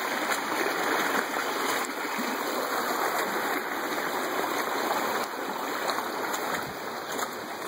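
River water rushing and splashing over rocks, a steady, even flow that softens a little near the end.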